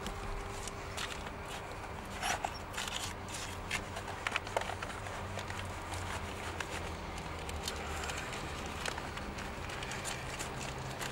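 Paper rustling and small sharp clicks as wagon labels are handled at a freight wagon's metal label holder, over a steady low hum. Most of the clicks come a couple of seconds in.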